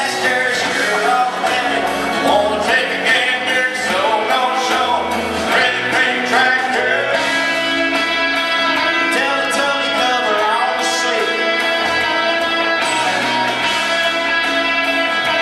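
Live music: a man singing into a microphone while playing an electric guitar, with a steady low bass line under it.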